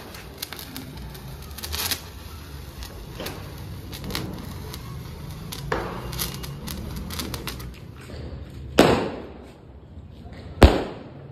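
A hand-held sparkler fizzing with scattered sharp crackles and pops, then two loud firework bangs about two seconds apart near the end, each trailing off.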